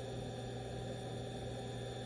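Spindle of a 2005 Okuma horizontal machining center running steadily at about 12,000 RPM with no cut: an even hum with a steady high whine, very nice and quiet.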